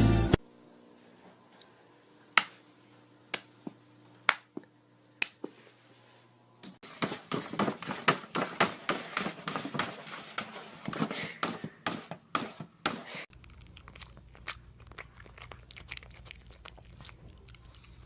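A few scattered sharp clicks, then several seconds of dense crinkling and crunching, then faint clicks over a low hum.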